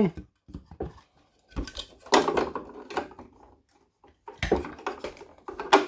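Hard plastic clicks, knocks and rattles from handling a Hot Wheels plastic display case as its stands are pushed into place on the bottom, several separate knocks with a sharp click near the end.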